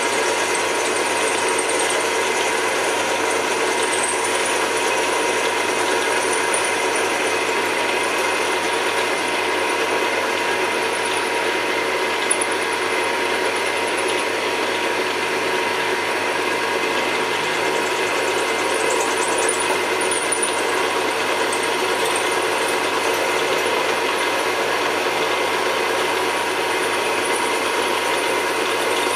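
Drill press running steadily, its bit cutting into the brass parts of a Hart-Parr tractor carburettor's throttle bore.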